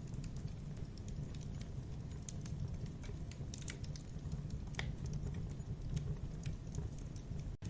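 Campfire burning: a steady low rumble of flames with irregular wood crackles and small pops, one sharper pop near the middle. The sound cuts out for an instant near the end.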